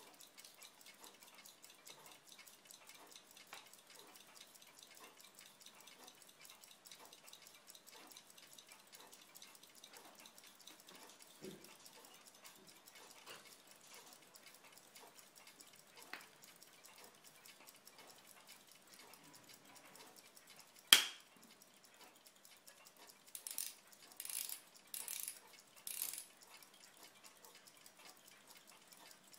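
Delicate watchmaker's bench work: a faint, fast patter of tiny ticks, then a single sharp click of steel tweezers on metal about two-thirds of the way through. A couple of seconds later come four short hissing puffs.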